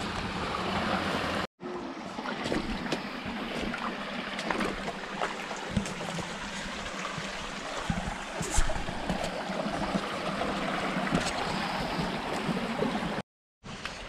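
A small rocky stream rushing and splashing over stones and little cascades, a steady rush of water. It drops out for a moment twice, near the start and near the end.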